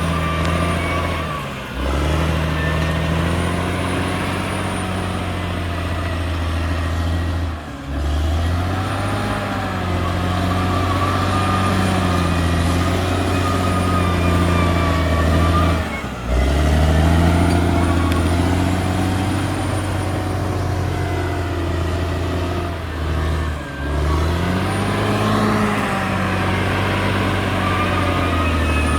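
Caterpillar D6R XL bulldozer's diesel engine running under varying load, its pitch rising and falling as the machine works, with a faint high whine above it. The sound dips sharply and briefly about four times.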